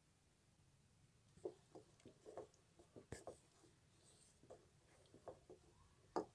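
Spatula stirring thick ground mustard-greens saag in a pan: soft, irregular scrapes and taps against the pan, with a sharper tap near the end.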